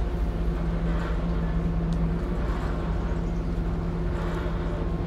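Steady low engine drone with a constant hum, the running engines of the MS Chi-Cheemaun car ferry.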